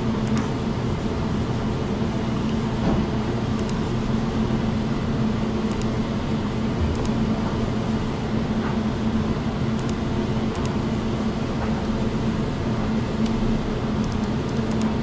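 Steady machine hum with a constant low drone and background noise, and a few faint ticks scattered through.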